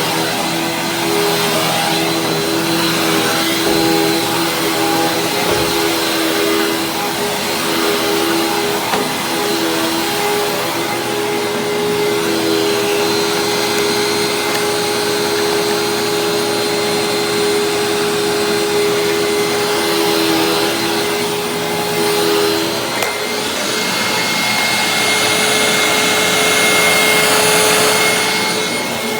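Hoover WindTunnel Supreme upright vacuum running steadily while vacuuming carpet: a constant motor whine over rushing air. The pitch of the whine shifts partway through and the sound grows slightly louder. The machine is freshly serviced, with a cleaned filter and a new brush roll.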